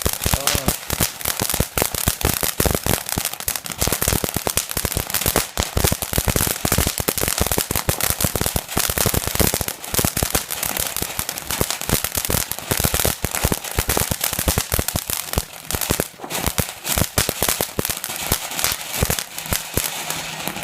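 A firework crackling continuously: a dense, fast rattle of small sharp cracks that keeps going for about twenty seconds and then stops suddenly near the end.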